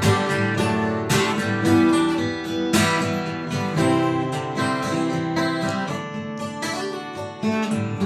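Acoustic guitar strumming chords in the instrumental close of a song.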